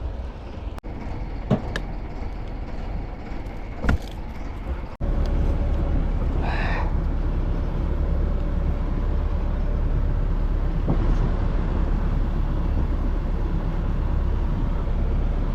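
Boat engine running steadily, a low rumble mixed with the rush of wind and water, louder after about five seconds. A few sharp knocks sound in the first four seconds.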